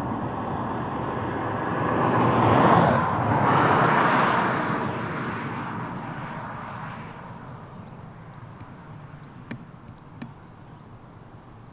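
English Electric Class 37 diesel-electric locomotive passing at speed. Its engine builds to a loud peak about three to four seconds in, then fades as it draws away, leaving a few faint sharp clicks near the end.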